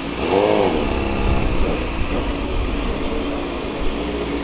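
Motorcycle engine revving up and dropping back once, briefly, near the start, over steady road and wind noise while riding.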